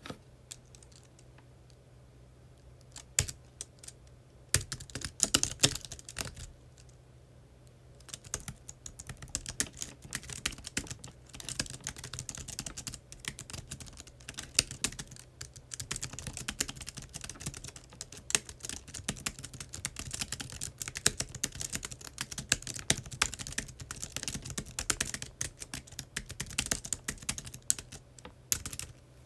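Typing on a computer keyboard: a few scattered keystrokes at first, then steady, rapid typing from about eight seconds in until just before the end.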